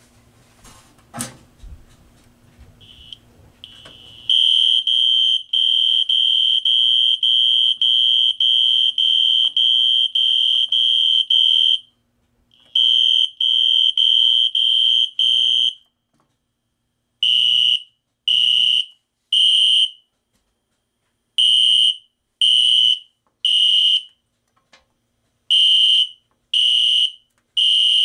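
System Sensor SpectrAlert fire alarm horn, driven by a malfunctioning Fire-Lite MS2 panel that could not be silenced, starts up after a click about a second in. It sounds a high horn tone pulsing about twice a second, then switches midway to the temporal-three evacuation pattern: three blasts, a pause, repeated.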